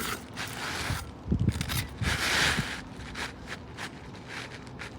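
An asphalt shingle being pushed and scraped up under the shingle courses above, with a few knocks and one longer scrape, as it snags on leftover fasteners.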